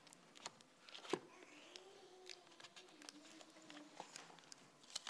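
Near silence in a small room, broken by faint scattered clicks and rustles as the Bible is handled at the pulpit while a verse is looked up; the sharpest click comes about a second in. A faint wavering hum runs through the middle.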